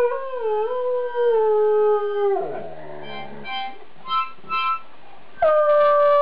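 Afghan Hound howling along with a harmonica: a long wavering howl that falls in pitch and slides down to end about two and a half seconds in, then short harmonica chords, then a second long, slowly falling howl near the end.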